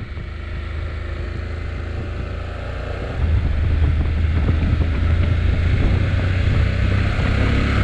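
Honda NC750X parallel-twin motorcycle engine running on the road, with wind rushing over the microphone. The engine and wind noise step up louder about three seconds in as the bike picks up speed.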